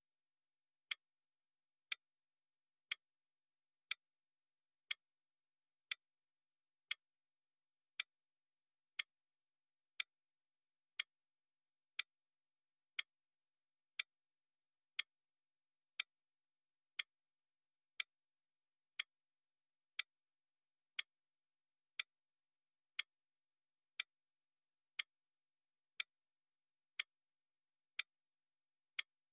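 Countdown-timer clock-tick sound effect: one sharp tick every second, marking each second counting down.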